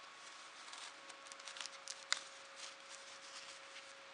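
Faint rustling of hands handling felt pieces on a fabric book page, with one sharp tap about two seconds in.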